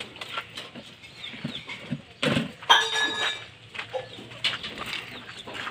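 Racing pigeons flapping their wings as they land on the loft's corrugated tin roof, with scattered light clicks and knocks of the birds on the loft. A little over two seconds in comes a dull thump, followed by a short call from another animal.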